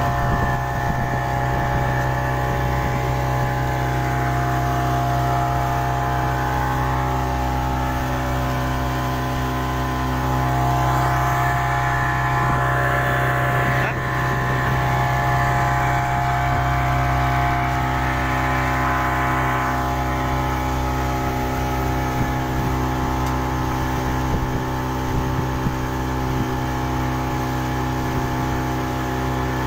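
40 hp outboard motor running steadily at speed, driving a small fiberglass boat, with the rush of water and wake beneath it.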